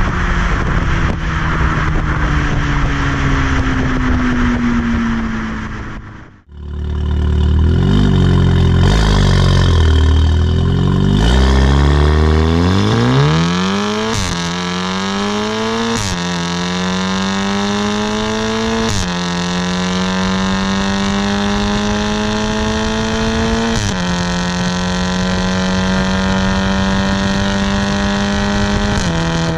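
VW Golf R mk7.5's turbocharged 2.0-litre four-cylinder heard at the tailpipes of an IPE (Innotech Performance Exhaust) system while driving. The revs settle down early on, and the sound cuts out for a moment about six seconds in. The car then pulls hard, and the engine note climbs and drops sharply at four upshifts before holding a steady cruising note near the end.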